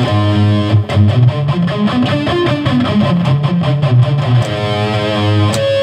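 Electric guitar playing a fast run of notes through a fully diminished seventh arpeggio. About four and a half seconds in it settles onto held notes, the diminished sound resolving to the tonic chord, and the last note is held with vibrato.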